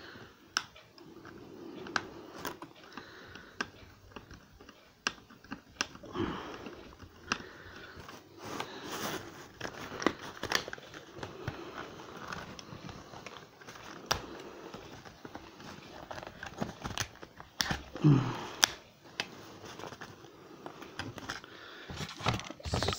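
Small screwdriver clicking and scraping at a screw that will not loosen, one of the screws fixing a model car to its cardboard packaging, with cardboard rustling and creaking as the tray is handled. Sharp clicks come at uneven intervals throughout.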